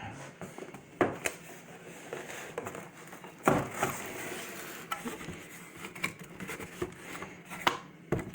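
A boxed machine being unpacked by hand: packing rustling, with irregular knocks and clunks as the unit is handled. The loudest knock comes about three and a half seconds in.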